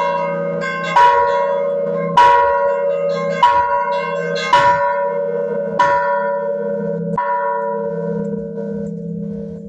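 Large church bell struck by its clapper about seven times, roughly a stroke a second with the strokes spreading slightly apart, each leaving a long ringing hum; the last stroke rings away near the end. It is rung as the call to mass.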